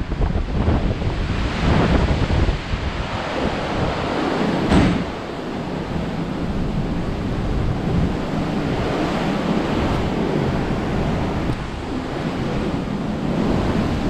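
Strong wind gusting across an open cruise-ship deck and buffeting the camera microphone. It is gustier at first, with one sharp, louder blast about five seconds in, then settles into a steadier rush.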